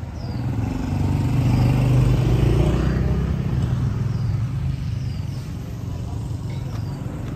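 Motor scooters passing close by, their engines swelling to the loudest point about two seconds in and then fading into a steady low rumble.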